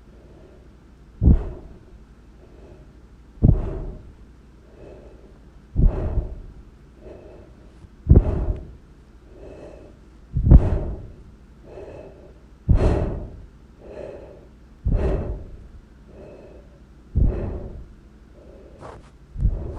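The 'sénèque' sound effect played over and over: a loud, breath-like burst about every two and a quarter seconds, nine times, each followed about a second later by a softer one.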